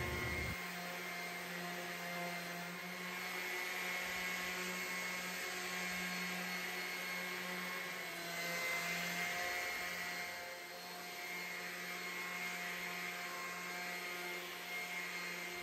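Electric sander running steadily for a light sanding of primed wood, to even out the surfaces: a constant motor hum with a hiss that swells and eases every few seconds.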